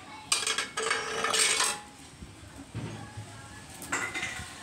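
Metal kitchen clatter: a knife and metal cookware knocking and scraping for about a second and a half, then a few lighter knocks.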